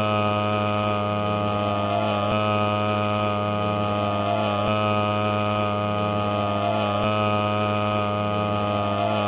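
A steady droning hum with many overtones, with a slight wobble that comes back about every two and a quarter seconds.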